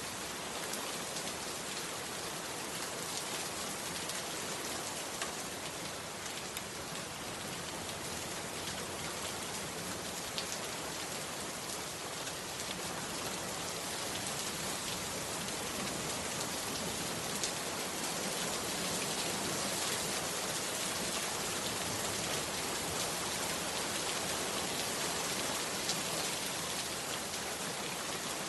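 Heavy rain falling steadily: a dense, even hiss with a few sharp drop hits standing out, growing slightly louder about halfway through.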